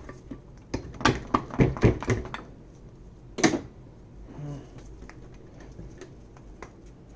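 Metal brake-caliper parts clicking and knocking together as the floating frame is worked into place by hand: a quick flurry of knocks about a second in, then one more knock about three and a half seconds in.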